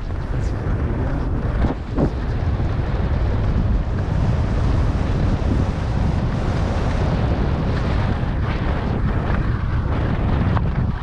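Wind rushing over the microphone of a camera worn by a skier going downhill, a loud steady rush with heavy low rumble, with skis sliding on packed, groomed snow.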